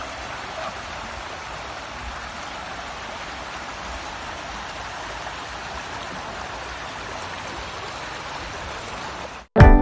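Shallow river water running steadily over gravel and stones, a continuous even rushing hiss.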